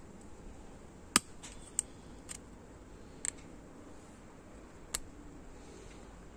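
Five short, sharp metallic clicks as a steel snap ring is handled on the tips of snap ring pliers, the loudest about a second in.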